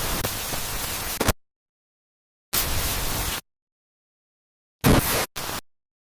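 Static noise sound effect: bursts of harsh hiss that cut in and out abruptly, one running for about a second, another of about a second midway, and two short ones close together near the end, with dead silence between them.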